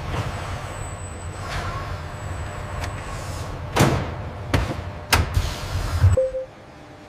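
Factory machinery running with a low rumble and hum, broken by several sharp clunks and knocks in the second half. The sound cuts off abruptly near the end.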